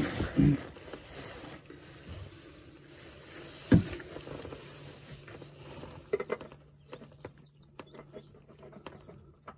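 Handling noises while working under a car: rustling, a single sharp knock about four seconds in, then light scrapes and clicks as a spin-on oil filter is threaded onto the engine's filter mount.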